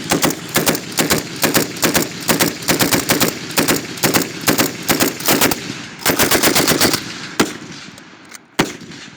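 7.62 mm light machine gun firing rapidly for about seven seconds, then two single shots near the end.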